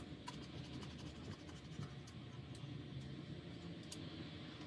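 Faint scratching and light ticking of a blade working along the edge of an iPad digitizer's glass, trimming excess double-sided tape, with one sharper click at the end.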